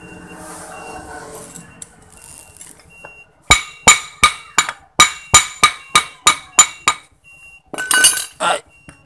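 Metal tapping on a cast motor housing to force a tight-fitting part into place: about eleven sharp, ringing knocks at roughly three a second. A short metallic clatter follows near the end.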